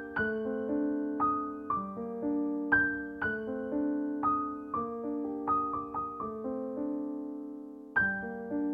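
Background piano music: a slow, gentle melody of struck notes over chords. Near the end, one chord is left to fade for about a second before the next phrase starts.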